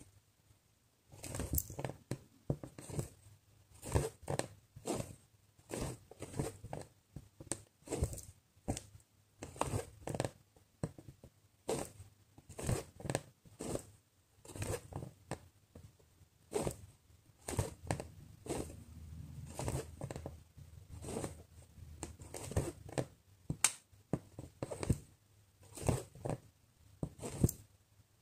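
Needle and embroidery floss being drawn through cross-stitch canvas, a short rasping stroke about once or twice a second as each stitch is pulled through, starting about a second in.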